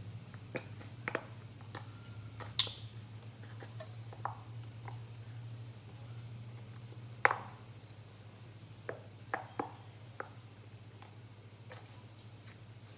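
Scattered light clicks and taps of a spoon and container against a skillet as ginger paste is spooned into cauliflower rice, about ten in all with the loudest about seven seconds in. A steady low hum runs underneath.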